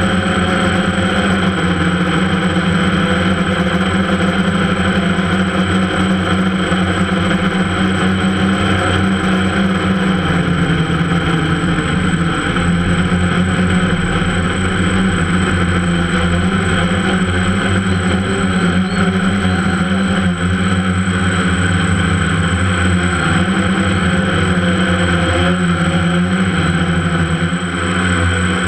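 Multirotor drone's electric motors and propellers humming steadily, the pitch dipping a little about ten seconds in and wavering near the end.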